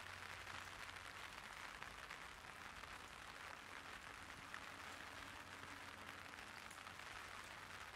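Light rain falling steadily on an umbrella: a faint, even hiss of drops.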